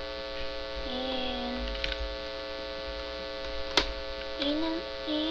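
Steady electrical mains hum with many overtones, with one sharp click a little under four seconds in.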